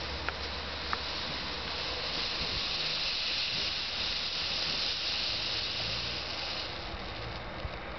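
Blue smoke ball burning, giving a steady hiss as smoke jets out, weakening near the end as the smoke thins. Two short sharp clicks in the first second.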